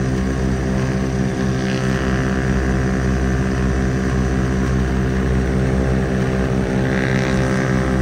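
The Ford Tri-Motor's three radial engines and propellers at takeoff power, a steady pulsing drone heard from inside the cabin as the plane lifts off and climbs.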